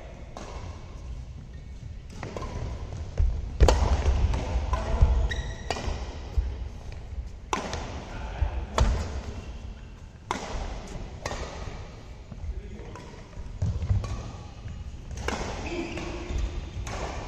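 Badminton rackets striking a shuttlecock in a doubles rally: sharp smacks, about one every one to two seconds, with dull thuds of footwork on the court floor.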